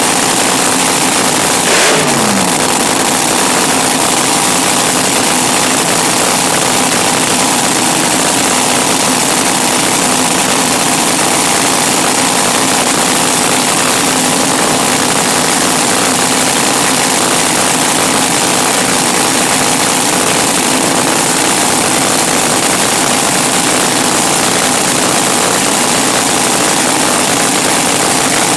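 Racing car engines running steadily, with a short sweep falling in pitch about two seconds in.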